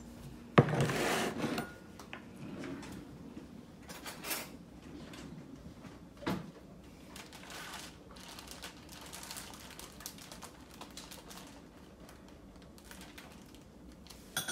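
Kitchen food-preparation handling noise: a sharp knock about half a second in, followed by a second of rustling and scraping, then scattered light clinks and taps of utensils and dishes, with a spoon clinking in a small bowl near the end.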